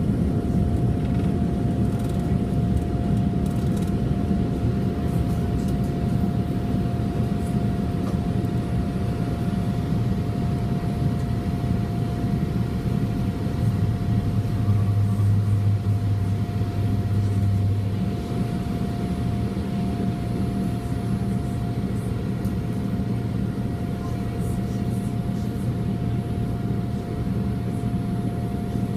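Boeing 787-8 airliner's jet engines running: a steady low rumble with a constant hum. The low drone swells for a few seconds past the middle, then the sound eases slightly.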